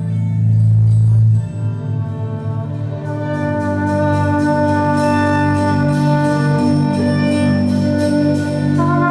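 Live chamber ensemble music: trumpet and two violins over a low bass line. The low notes are strongest at first, and the higher held notes fill in from about three seconds in, with a light, regular high ticking on top.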